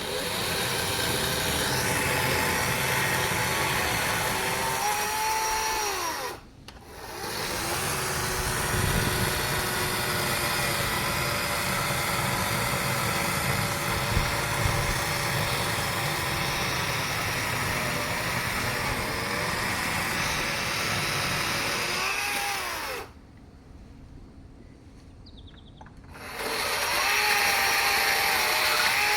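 Echo 56-volt battery chainsaw running and cutting through logs in three runs, its motor whine dipping in pitch and recovering as the chain bites into the wood. It stops briefly about six seconds in, runs again for about sixteen seconds, pauses, and starts once more near the end.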